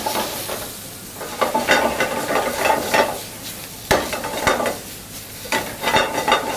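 Peanut sauce with green beans sizzling in a hot pan while a utensil stirs and scrapes it, with a few sharp knocks against the pan.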